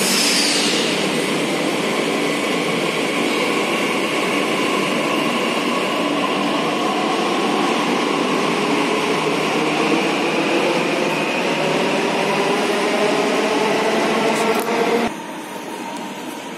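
Delhi Metro train running in the station, a loud steady rumble with a whine that slowly rises in pitch; the sound drops abruptly near the end.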